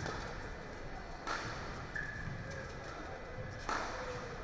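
Badminton rackets striking a shuttlecock during a doubles rally: three sharp hits, at the start, about a second in and near the end, over the steady murmur of an indoor hall.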